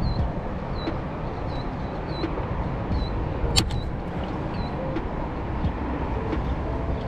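Wind rumbling on the microphone, with a bird repeating a short high chirp about every second. A single sharp click comes about three and a half seconds in.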